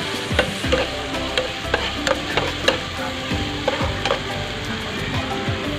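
Food frying and sizzling in a pan as it is stirred, with a steady hiss and about ten irregular sharp taps of the utensil against the pan.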